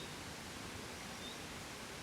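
Gentle wind blowing as a steady, even rush with no gusts. A faint high chirp sounds twice.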